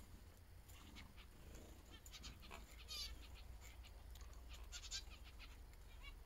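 Faint scattered chirps and short calls from small cage birds, with a quick trill about three seconds in, over a low steady rumble.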